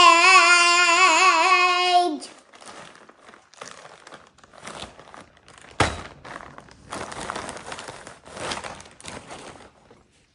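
A child's voice holds a loud, wavering sung note for about two seconds. Then a clear plastic bag crinkles and rustles as it is opened and a tulle skirt is pulled out, with one sharp knock about six seconds in.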